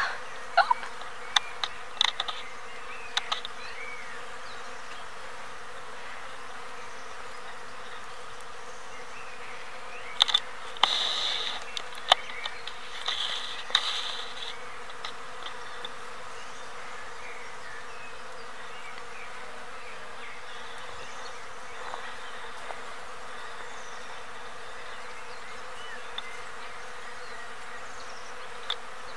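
Steady hum of many bees buzzing as they forage in a flowering bay laurel tree. A few short sharp clicks come in the first seconds, and louder brief higher-pitched sounds come about a third of the way in.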